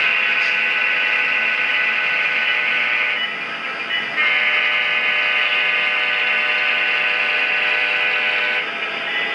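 Sound-equipped HO scale BNSF diesel locomotive model sounding its multi-chime air horn: a long blast, a break of about a second, then a second long blast that stops near the end.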